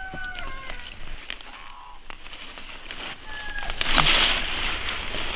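A rooster's crow ends about half a second in. About four seconds in comes a loud burst of rustling leaves as radish plants are pulled up in the field.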